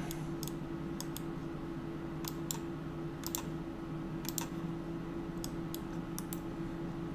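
Irregular clicks from a computer mouse and keyboard, a dozen or more, spaced unevenly, over a steady low electrical hum.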